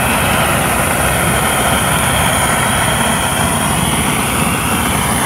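Handheld gas blowtorch on a small canister, burning with a steady, even rushing hiss as it singes the skin of a raw pig's leg.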